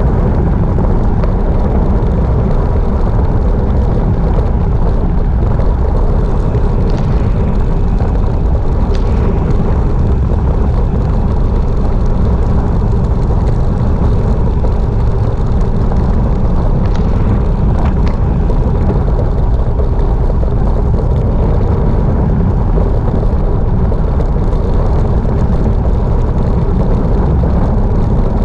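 Wind buffeting the microphone of a camera on a bicycle descending at speed: a loud, steady, low rumble that does not change.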